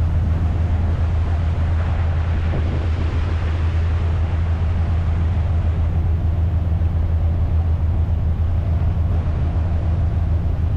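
Steady low drone of a 40-foot trawler's diesel engine running under way, with an even hiss over it.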